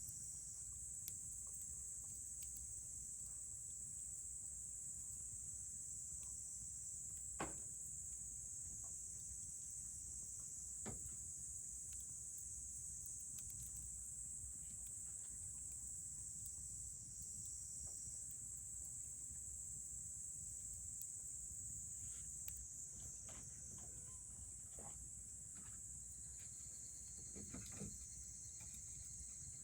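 Insects chirring in a steady, high-pitched drone. A wood campfire gives an occasional sharp pop, the loudest about seven seconds in and smaller ones near eleven seconds and near the end.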